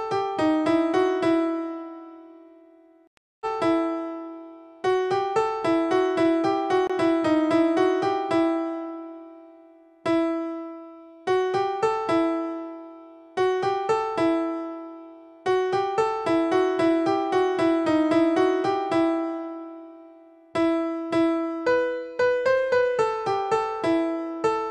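Background music: a keyboard melody of quickly decaying piano-like notes, played in short phrases with brief pauses between them.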